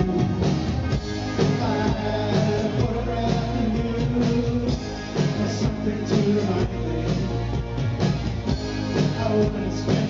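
New wave band playing live: a male lead singer sings over keyboards and drums, with a steady pulsing bass line.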